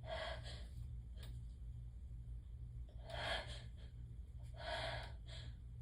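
A woman's gasping, sniffing breaths: one quick intake at the start, then a cluster of two or three more about three to five seconds in. Chhinkni snuff is tickling her nose toward a sneeze that won't come.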